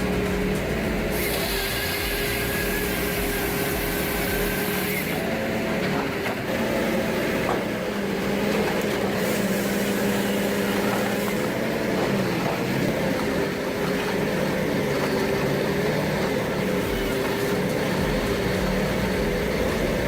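Heavy tree-cutting machine's engine running steadily, its pitch dipping and rising a little now and then as it works.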